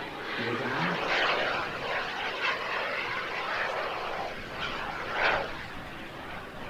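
Model jet turbine (B300F) in a scale English Electric Lightning RC jet, running as the plane flies its landing approach: a steady jet rush, with a brief swell about five seconds in.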